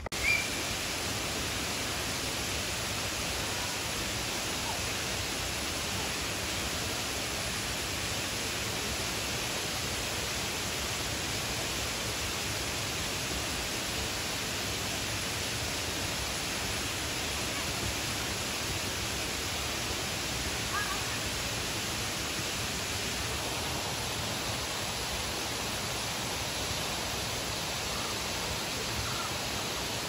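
Steady, even rush of water from a waterfall's cascades.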